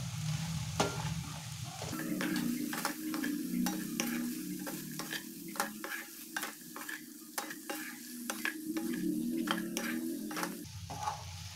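Wooden spatula stirring and tossing fried paneer, onions and capsicum in a steel kadai, scraping and knocking against the pan in many quick clicks. A frying sizzle runs underneath.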